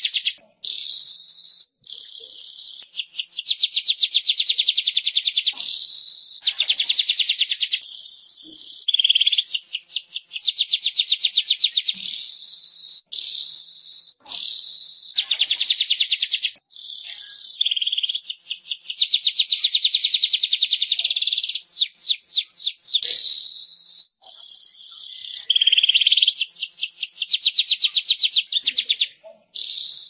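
Weaver bird (manyar) song: high-pitched chattering, with fast runs of rapid ticks alternating with buzzy, wheezing notes about a second long, repeated almost without pause.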